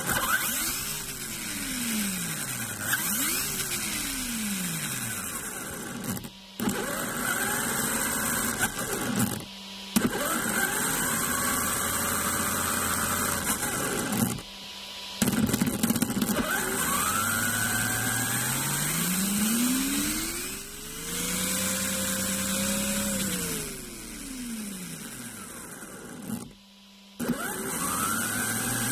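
RC car's electric motor driving its spur gear through the pinion, whining as it is throttled up and down over and over, the pitch rising and falling in arcs. The whine cuts out briefly a few times between runs.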